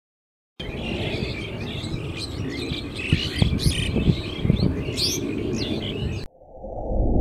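Small birds chirping and twittering over a steady low rumble, starting about half a second in. Near the end this cuts off and a swelling whoosh sound effect begins.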